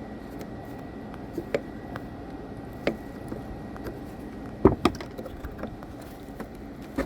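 Scattered sharp plastic clicks and taps from prying and working at a car tail light's clip or connector, with a louder pair of knocks about two-thirds of the way through. A faint steady high whine runs underneath.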